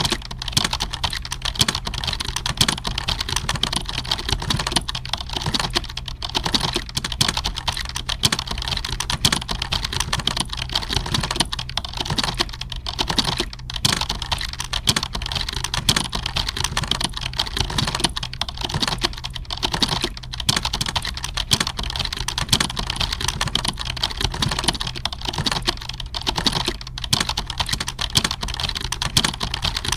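Computer keyboard typing: rapid, dense key clicks with no real pauses, over a steady low hum.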